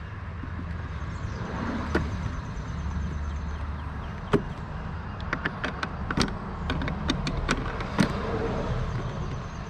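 Hand work on a stuck part of a car's brake master cylinder assembly: a string of sharp clicks and knocks as it is pried and worked loose, over a low steady rumble.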